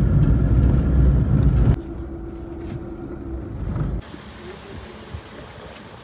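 Car on the move: a steady low road and engine rumble that drops off abruptly a little under two seconds in, leaving a quieter hum with one steady tone, which itself cuts to a lower background about four seconds in.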